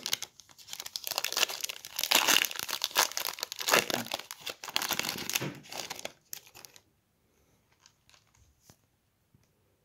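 Foil wrapper of a Panini Prizm 2021 WNBA trading-card pack being torn open and crinkled by hand for about six seconds. After that come a few faint clicks as the cards are handled.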